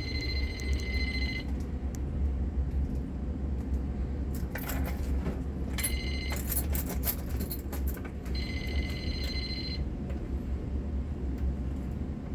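Fire alarm system sounding in alarm. A high electronic tone comes in bursts of about a second and a half, once at the start and again about eight seconds in, with a shorter burst around six seconds. Under it runs a steady low hum, with a cluster of sharp clicks in the middle.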